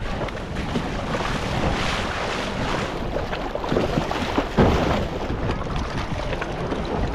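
Shallow seawater splashing and sloshing against a plastic kayak, with wind on the microphone; a louder splash comes about four and a half seconds in.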